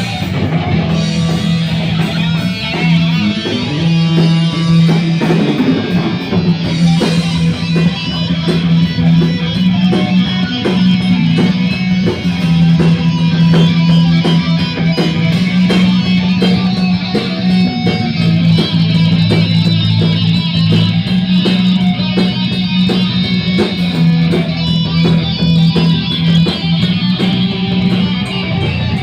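Rock music with electric guitar and bass, played with a steady beat and no singing.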